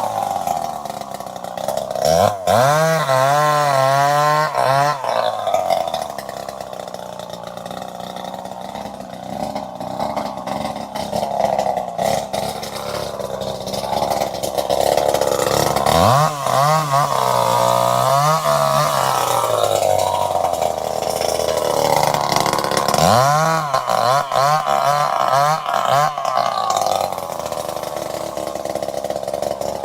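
Two-stroke chainsaw engine running and revved up sharply three times, each burst lasting about three seconds with the pitch wavering, settling back to a lower steady run in between.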